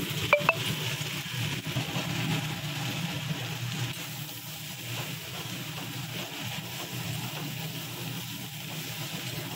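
Sliced ivy gourd coated in mustard–poppy seed paste sizzling in a wok over a gas burner, with a steady hiss and low rumble as a flat spatula stirs it. Two sharp taps of the spatula on the wok near the start.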